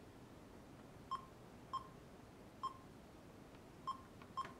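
Sony Digital Mavica MVC-FD91 camera's menu beeps as its buttons are pressed to navigate the menu: five short electronic beeps at uneven intervals, like a computer game.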